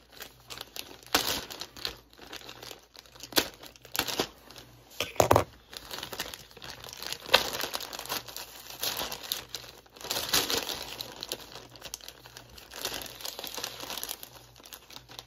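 Packaging being unwrapped by hand: irregular crinkling and rustling, with a few sharper crackles and tearing sounds.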